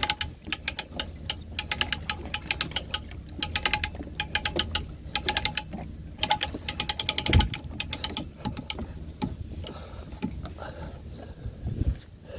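Fishing reel clicking in quick runs of sharp ticks, with one low thump about seven seconds in.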